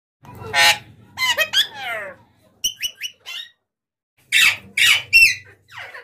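Alexandrine parakeets calling: a string of loud calls, a few with falling pitch near the second second, short high chirps around three seconds in, and another burst of loud calls in the last two seconds.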